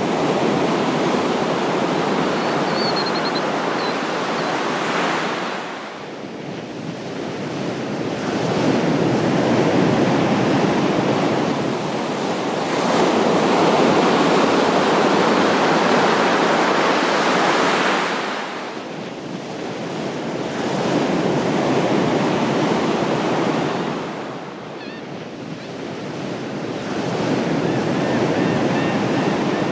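Ocean waves washing onto a shore, swelling and ebbing in long surges several seconds apart. Faint short high chirps come briefly about three seconds in and again near the end.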